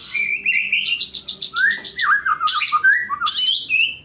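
Long-tailed shrike (cendet) and white-rumped shama (murai batu) singing against each other. The song is a rapid run of short, harsh high notes, about six a second, interwoven with clear whistled notes that slide up and down.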